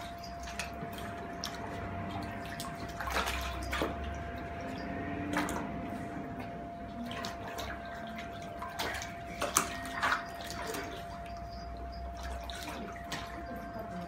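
Asian small-clawed otters splashing and paddling in a shallow plastic tub of water: irregular splashes and sloshing against the tub's plastic sides, with a couple of sharper splashes about two-thirds of the way through. A faint steady hum runs underneath.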